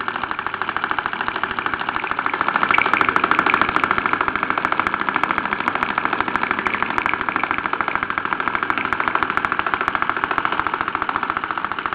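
Mersey No. 51 toy stationary steam engine running steadily at speed, with a rapid, even beat of exhaust puffs. It is running as it should after a repair to its steam pipes, with no excess steam escaping.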